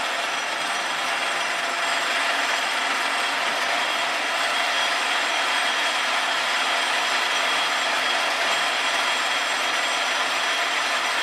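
Davenport Model B multi-spindle automatic screw machine running steadily, a dense, even mechanical noise of its gears and mechanisms with no breaks.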